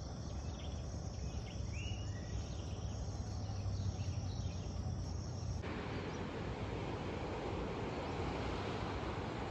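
Outdoor ambience: a steady high drone of insects with a few short bird chirps over a low rumble, cutting suddenly a little past halfway to an even rushing noise.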